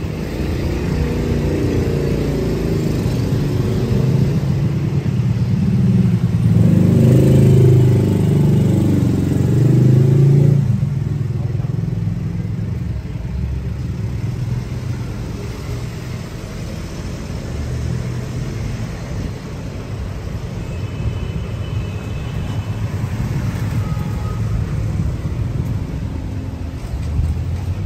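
Street traffic: a motor vehicle engine running close by, loudest about six to ten seconds in and dropping off suddenly, then a steadier traffic hum.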